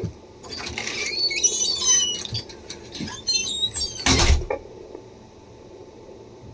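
Handheld fetal doppler's speaker as the probe is moved over the belly in search of the heartbeat: scratchy swishing with warbling whistles, a loud knock about four seconds in, then a steady hiss of static.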